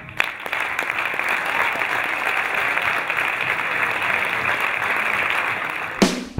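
Audience applauding, a steady patter of many hands clapping that stops abruptly near the end.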